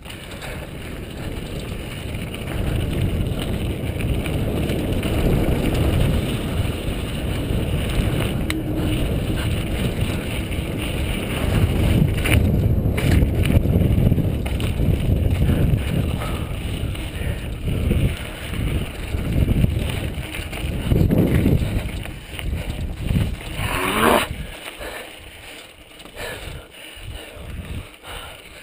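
Rumble of a 2003 Intense Tracer mountain bike's tyres rolling over a dirt trail, mixed with wind buffeting a helmet-mounted camera's microphone, rising and falling as the bike moves. The noise drops off sharply about three-quarters of the way through.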